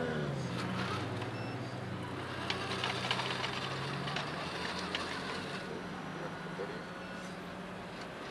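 Low, steady engine drone from a Tamiya 1/14 RC truck's simulated diesel sound unit, with a quick rev up and down right at the start, then running evenly and easing off a little in the second half. Light clicks and taps come through now and then.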